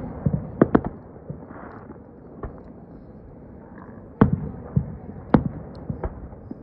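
Aerial fireworks shells bursting: a string of sharp booms, three in quick succession in the first second, then a lull, then more spaced bangs from about four seconds in.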